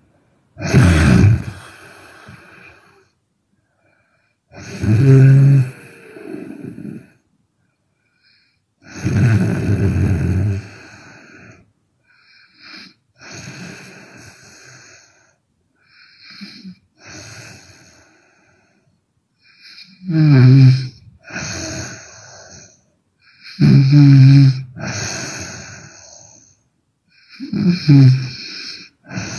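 A woman snoring hard: about eight snores, one every three to four seconds, some much weaker than others.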